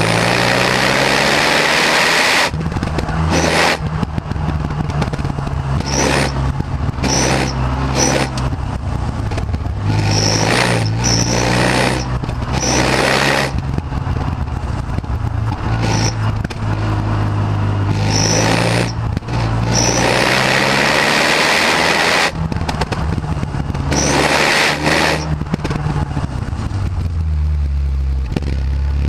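Renault Megane R26's turbocharged four-cylinder engine and stock exhaust under way, revs climbing and dropping again and again as it pulls through the gears and lifts off, with rushing wind and road noise.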